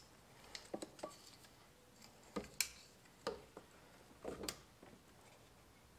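Scattered light clicks, taps and clinks of hand work on engine parts and fittings, a handful of short sounds with the sharpest ones about two and a half seconds in and again near four and a half seconds.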